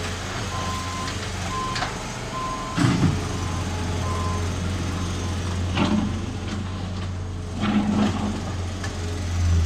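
Diesel engine of heavy earthmoving machinery running steadily while a backup alarm beeps about once a second for the first few seconds. A few sharp knocks come from the machine at work.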